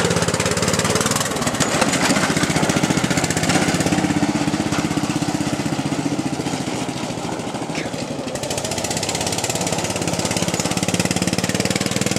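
Briggs & Stratton I/C 16.5 hp engine of an off-road Craftsman LT1000 lawn tractor running as the tractor drives around on gravel. The engine speed eases off around the middle and picks up again near the end.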